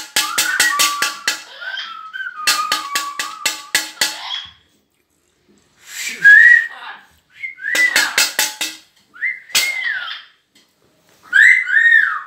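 Rapid clicking, about seven clicks a second, in two runs over the first few seconds. Then come several short whistles, each rising and then falling in pitch; the loudest is about six seconds in, and a pair follows near the end.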